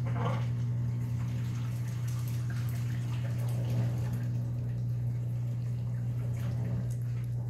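A Shih Tzu eating dry kibble, faint scattered crunches as it picks pieces off a tile floor, over a loud steady low hum.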